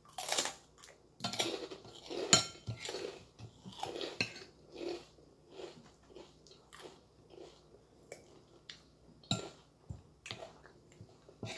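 Close-up crunching of a krupuk cracker being bitten and chewed, loudest in the first few seconds. Later a metal spoon clinks and scrapes against a plate a few times, between quieter chewing.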